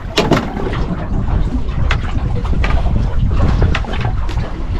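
Wind buffeting the microphone on a small boat on the water: a steady low rumble with a few sharp knocks.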